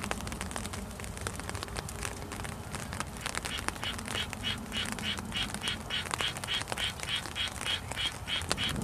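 A fast, even series of short, high animal calls, about four a second, starts about three and a half seconds in, over scattered light ticks of spring raindrops.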